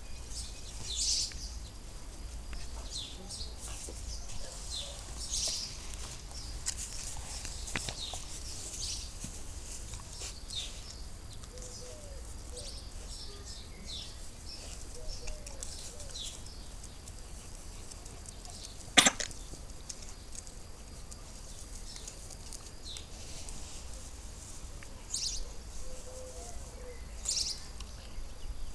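Outdoor ambience with small birds chirping now and then in short high calls, over a steady low rumble. One sharp click stands out, about nineteen seconds in.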